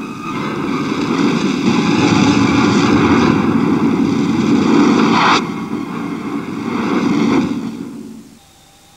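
Film sound effects of war: a heavy rumbling roar with a steady engine-like whine over it. A sharp rising whoosh comes about five seconds in, and the din dies away near the end, leaving a faint steady tone.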